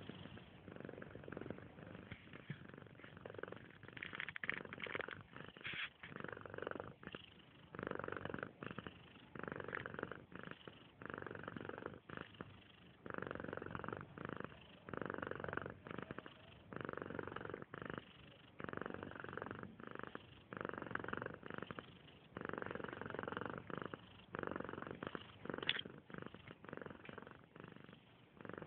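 A cat purring, swelling and dropping about once a second with its breathing, with a brief sharp sound near the end.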